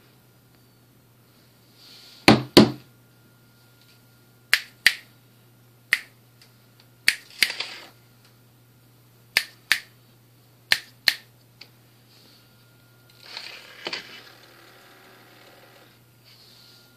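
WowWee Alive Chimpanzee animatronic toy making sharp clicks, mostly in quick pairs, every second or two, with two short breathy bursts, one near the middle and one near the end, over a faint steady hum.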